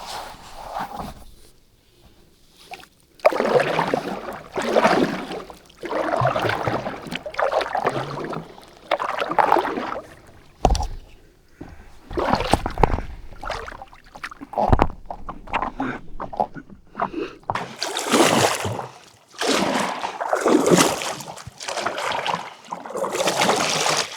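Paddle board paddle strokes in lake water: rhythmic splashing and sloshing, a stroke about every one and a half to two seconds, starting about three seconds in.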